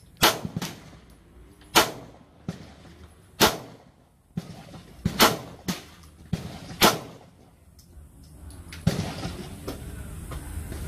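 Five shots from a Glock 19 Gen 3 9mm pistol with its stock plastic guide rod, fired at an even pace about one and a half seconds apart.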